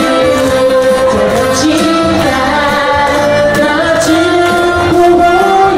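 A singer with musical accompaniment, sustained notes held and gliding between pitches over a steady beat.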